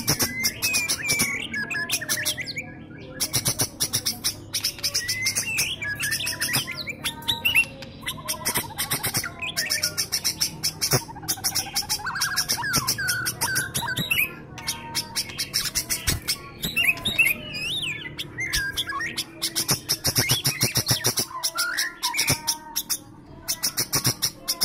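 Sooty-headed bulbul singing short, loud whistled phrases that slide up and down in pitch, over a continuous rapid, high-pitched chattering.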